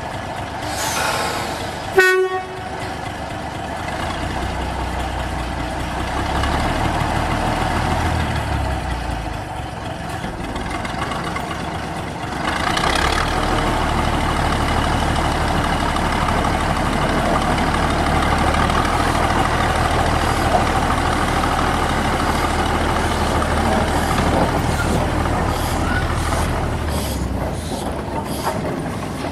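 Small narrow-gauge diesel locomotive's engine running as it moves along the track, its low note stepping up and down several times as the throttle is opened and eased. One sharp bang about two seconds in.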